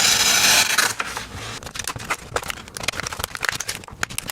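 A pocket knife blade drawn through a cheap handheld carbide and ceramic sharpener: a rasping scrape for about the first second, then a run of light, irregular clicks and scrapes.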